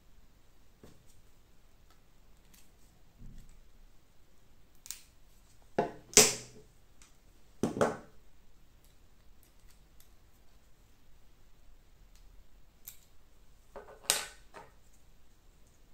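Hard 3D-printed plastic parts clicking and knocking as they are handled and fitted together by hand: a few sharp clicks, in pairs about six and eight seconds in, the loudest around six seconds, and one more near the end, with faint ticks between.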